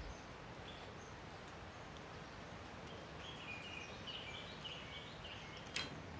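Steady background ambience with a run of short high chirps over a few seconds from about halfway in, and a single sharp click near the end.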